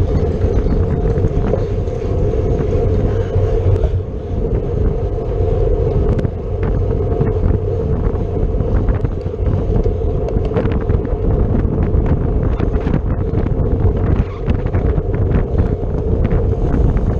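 Wind buffeting the microphone of a camera on a road bicycle riding at race speed, over a steady hum of tyres and drivetrain, with scattered short clicks and ticks.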